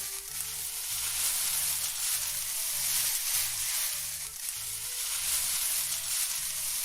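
A steady, even hiss, with soft, low background music notes repeating underneath.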